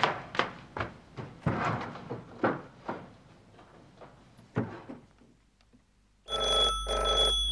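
A few footsteps on a hard floor fade away, then about six seconds in a landline telephone starts ringing, a loud pulsing ring.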